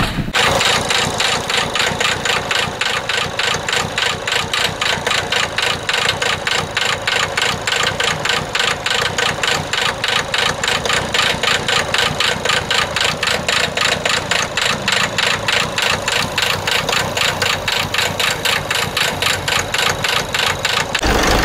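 Common-rail diesel engine running rough and loud with a regular clatter about three or four times a second, a symptom the mechanic traces to a faulty fuel-rail pressure sensor.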